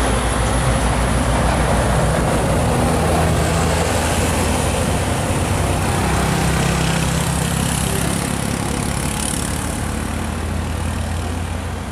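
Heavy truck's diesel engine running with a low steady drone over road noise, slowly fading near the end.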